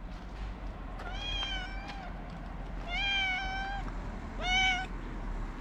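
A hungry street cat meowing three times: two drawn-out meows and then a shorter, louder one near the end, begging for food.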